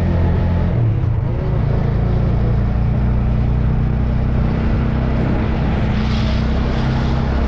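TVS motorcycle engine running steadily while riding, with a constant rush of noise over it.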